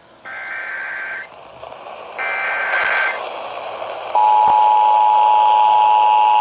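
Emergency Alert System header: two bursts of warbling SAME data tones, each about a second long, encoding a Severe Thunderstorm Warning. About four seconds in, the steady two-tone EAS attention signal starts, over a background hiss.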